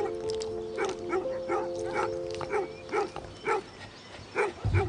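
A dog barking repeatedly in short barks, about two a second.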